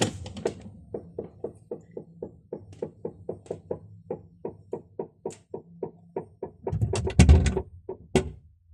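A fast, even series of light taps, about four a second, followed near the end by a few heavier thuds and one sharp knock.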